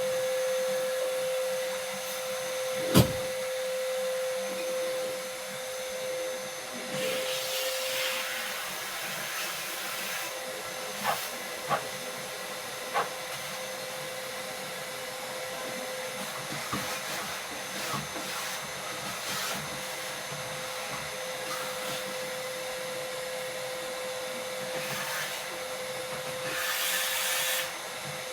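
A small electric motor runs steadily with an even whine. A few sharp knocks sound over it, the loudest about three seconds in, and there are brief hissy swells near the end.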